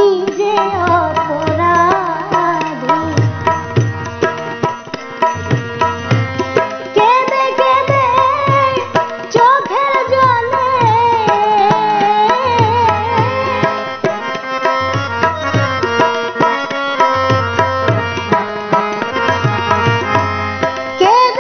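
Bengali Baul folk song: harmonium playing the melody over tabla and a larger bass drum keeping a steady rhythm, with a woman singing.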